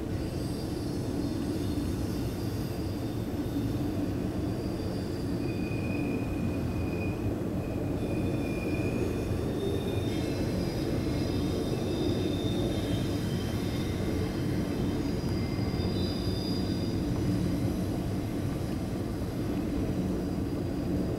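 CSX intermodal freight train's double-stack well cars rolling past at steady speed, a continuous rumble of steel wheels on rail. Thin, high-pitched wheel squeals come and go through the middle stretch.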